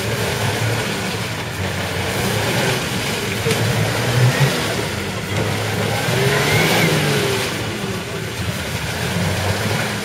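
Nissan Patrol GR's engine revving hard under load, its pitch rising and falling, as the 4x4 sits stuck in deep mud with its wheels spinning and churning the mud.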